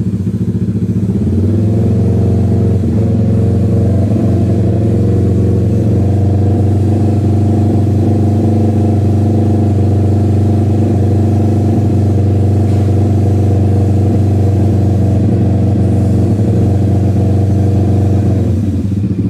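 Kawasaki Ninja 650's parallel-twin engine running through a DRIFT XAUST aftermarket full exhaust with dual exits. It is revved up from idle about a second in and held steady at around 3000 rpm, then drops back toward idle near the end. At that speed it measures around 102 dB at 1.5 metres.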